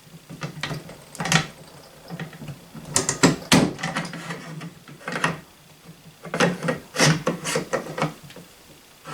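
The steel bolt carrier of a .50 BMG Model 95 rifle clicks and scrapes against the receiver in several short bursts as it is worked into its guide grooves. It is failing to seat on one side.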